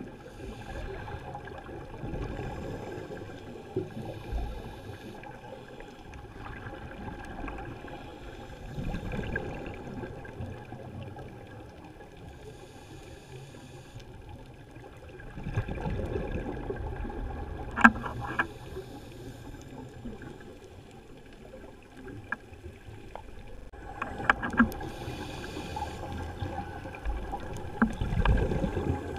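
Underwater sound heard through a scuba diver's camera housing: bursts of exhaled regulator bubbles rumbling and fizzing every several seconds. A few sharp clicks cut through, the loudest a little past halfway.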